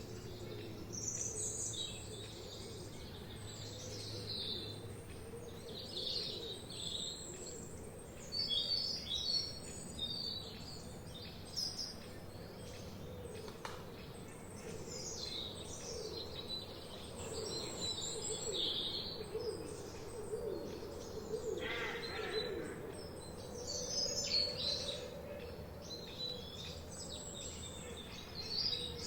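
Several forest birds singing and chirping at once, with many short high chirps and trills overlapping throughout and lower, wavering notes beneath them.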